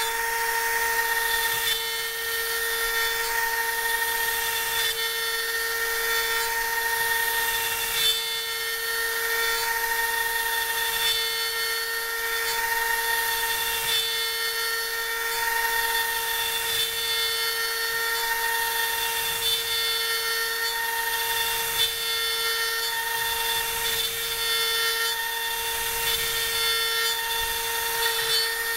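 CNC router spindle running at a constant steady whine while its end mill cuts a profile into a wooden board, with a constant hiss of the cut.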